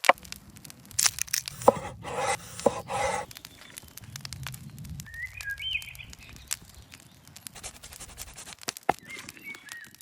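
Sharp clicks and cracks with two short bursts of rustling, scraping noise from outdoor food preparation, and birds chirping a few times in the background.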